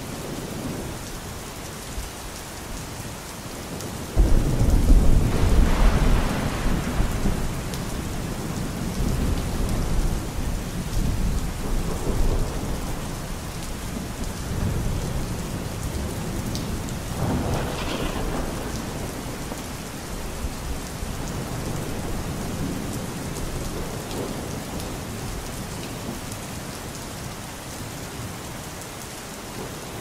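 Thunderstorm: steady rain throughout, with a sudden loud thunderclap about four seconds in that rumbles on for several seconds, and a second crack of thunder a little past the middle.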